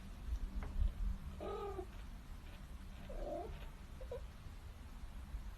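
A cat making a few soft, short mews, over a low rumble.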